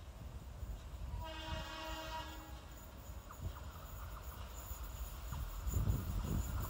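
Train horn sounding one long blast of about a second and a half as an Indian Railways passenger train approaches at speed. This is followed by the low rumble of the oncoming train, growing louder near the end.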